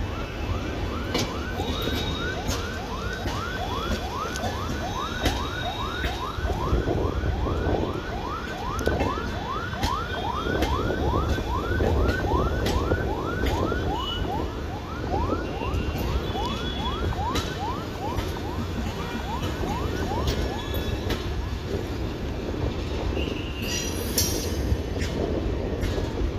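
LHB passenger coaches of an express train rolling slowly past, a low rumble with wheel clicks over the rail joints. Over it, a short high squeal that falls in pitch repeats about twice a second and stops about 21 seconds in.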